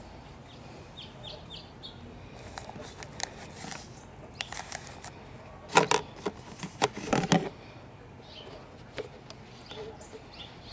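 Paper drink cups being handled and lifted out of a plastic car console cup holder: a run of light knocks and scrapes, loudest in a cluster about six to seven and a half seconds in. Birds chirp faintly in the background.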